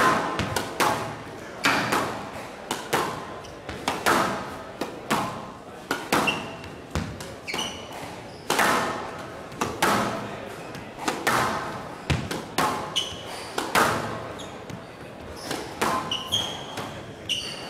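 Squash ball struck by rackets and smacking off the walls in a rally-paced knock-up, about one hit a second, each echoing around the glass court and hall. Short high squeaks of court shoes come in between.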